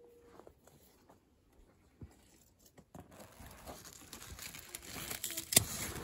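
Gourd-vine leaves and stems rustling and crackling as they brush close against the microphone, starting about halfway and growing louder, with one sharp click near the end.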